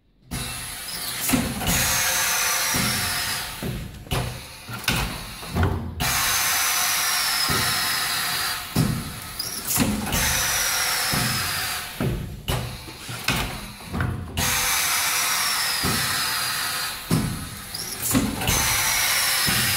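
YYD 400-300 pneumatic pad printing machine cycling: a steady hiss in spells of about four seconds, each with a short falling whine, broken by clusters of knocks and clicks as the silicone pad strokes back and forth and up and down.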